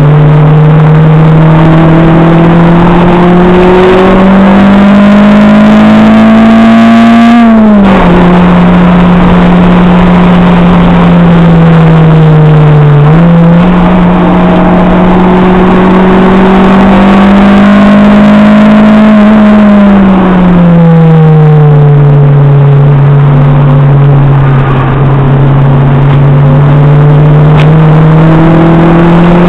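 Acura RSX Type-S's K20A2 four-cylinder engine at track speed, heard loud from inside the cabin: revs climb steadily and drop sharply on an upshift about eight seconds in, climb again, fall away off the throttle around twenty seconds in, then build once more.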